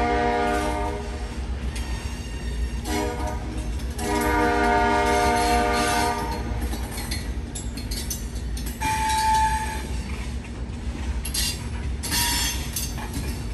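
Freight locomotive's multi-chime air horn sounding a long blast that ends about a second in, a short one about three seconds in, and another long one from about four to six seconds: the tail of a grade-crossing signal. Beneath it, the loaded gravel train rumbles steadily as it rolls by. A brief high wheel squeal comes near nine seconds, and some clanking near the end.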